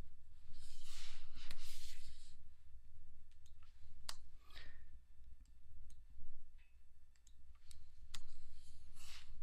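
Computer keyboard keys clicking in separate strokes and short runs as code is typed and edited, over a low steady hum. Two brief rushing noises stand out, one about a second in and one near the end.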